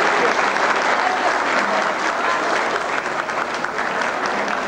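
Large audience applauding, a dense steady clapping of many hands that eases a little near the end.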